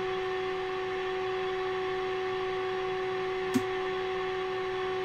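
A NordMende Elektra 58 valve radio's loudspeaker giving out a steady, even test tone: the modulated 460 kHz signal from a signal generator, fed into the set with the volume on full while its IF transformers are peaked. A single short click about three and a half seconds in.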